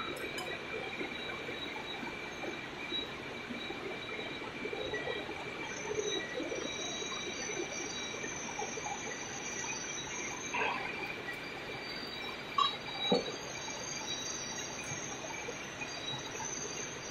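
Steady machine-shop noise from running CNC machinery: a constant hum with a high-pitched whine held on several steady tones. A few short knocks come a little past the middle.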